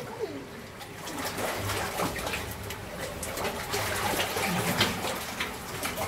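Water sloshing and splashing irregularly as a person wades waist-deep through spring water in a narrow rock tunnel.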